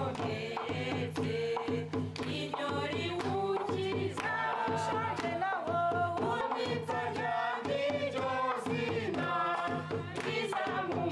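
A group of men and women singing together, accompanied by a drum struck with wooden sticks and clapping.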